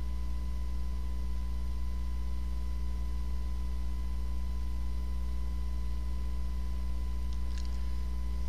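Steady low electrical mains hum with fainter higher steady tones above it, and a faint tick near the end.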